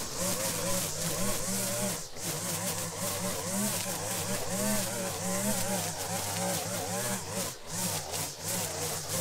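Gas string trimmer running under load as it cuts tall, overgrown grass and weeds. Its engine pitch rises and falls, dipping briefly twice.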